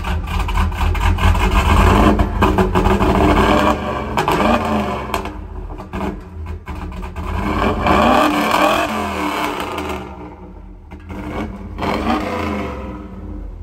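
Fourth-generation Chevrolet Camaro Z28's V8 revved in about three surges, its pitch rising and falling, with a dip in level about ten seconds in.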